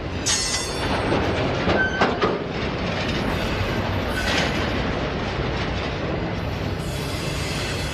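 Autorack freight cars rolling past on the track: a steady rumble of steel wheels on rails with sharp clacks, and two short high wheel squeals at about two and four seconds in.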